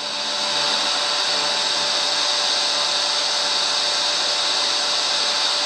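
FM radio static: the steady hiss of an FM receiver module sitting on an empty frequency at 87.5 MHz, played through an STK4141 stereo amplifier and its speakers. It fades in over the first half second, with a few faint steady tones beneath the hiss.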